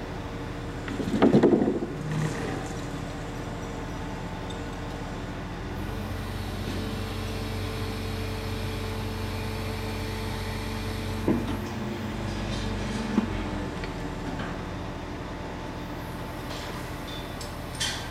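Heavy diesel engine running steadily, its note growing fuller about six seconds in and easing near the end while a steel lattice crane jib section is hoisted off a low-loader trailer. A loud knock comes about a second in, with two sharp knocks later on.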